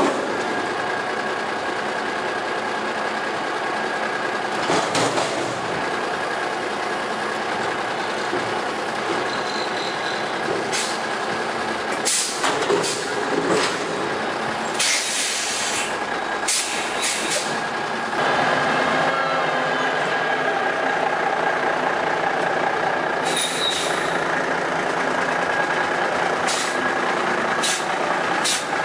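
1985 White front-loader garbage truck running, with a steady high whine over the engine. A string of sharp metal clanks and bangs comes in the middle as its forks handle a dumpster, and the engine grows louder for the last third. Two short high beeps sound along the way.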